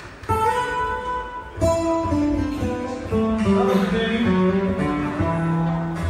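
Live plucked-string music: saz and guitar playing a stepping instrumental melody, coming in suddenly just after the start, with a fuller entry about a second and a half in.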